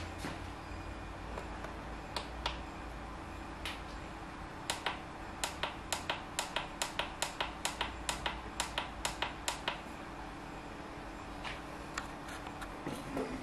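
Button clicks on an electric yogurt maker's control panel as its timer is programmed: a few single clicks, then a fast run of about twenty evenly spaced presses, roughly five a second, with a faint steady hum underneath.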